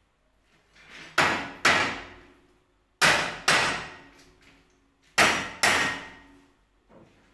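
Hammer blows struck in pairs, three pairs about two seconds apart, each blow sharp with a short ringing decay.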